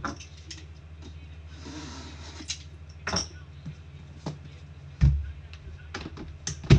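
A hard-shell card briefcase handled on a table: a short scrape, then several knocks and thumps as it is turned and laid flat, the loudest two about five seconds in and just before the end as its latch is worked. A steady low hum runs underneath.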